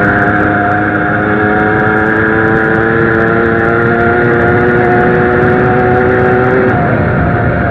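Zanella 70cc two-stroke moped engine running under way, its pitch climbing slowly as the bike gathers speed, then dropping near the end as the throttle comes off.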